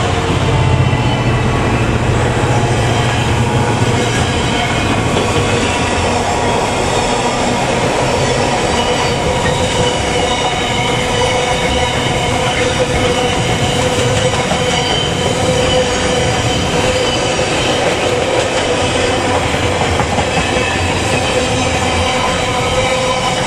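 Freight train passing close by: a deep locomotive engine drone for the first few seconds, then the wagons rolling past with steady wheel squeal ringing as several held high tones over the rumble of the wheels.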